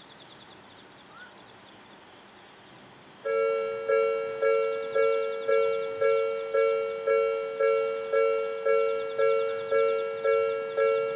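Japanese railway level-crossing warning bell starting about three seconds in: an electronic two-tone ding repeating about twice a second, each strike dying away before the next. It signals that a train is approaching and the crossing is closing.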